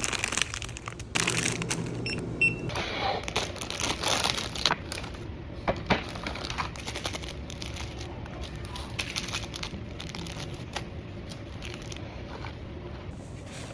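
Crinkling of instant-ramen plastic packaging being handled, with sharp clicks and rustles, busiest in the first six seconds. After that, a steady low background hum with occasional light taps.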